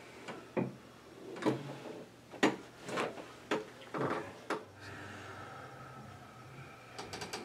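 Several short, sharp cracks and knocks, the loudest about two and a half seconds in, from a chiropractic side-posture adjustment of the fifth lumbar vertebra (L5): the thrust, and the body shifting on the padded treatment table. A quick run of small ticks comes near the end.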